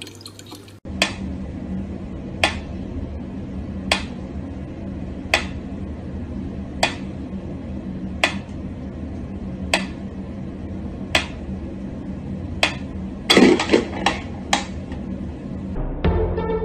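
Mechanical pendulum metronome ticking at a slow tempo, one sharp click about every one and a half seconds, over a low steady hum. A quick run of extra knocks breaks in a little before the end.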